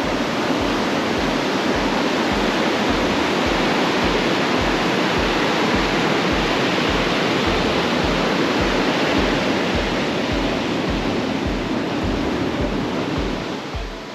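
Steady rush of surf, waves breaking on a sandy beach, with a low bass beat from background music pulsing underneath about twice a second.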